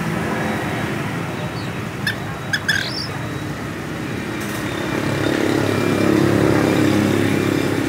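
Steady road-traffic noise, growing louder for a couple of seconds in the second half, with a few short high bird chirps about two to three seconds in.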